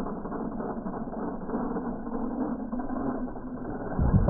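Losi LMT radio-controlled monster truck's electric drivetrain whirring with a gear-like ratcheting chatter, then a louder low rush about four seconds in as it drives on the dirt.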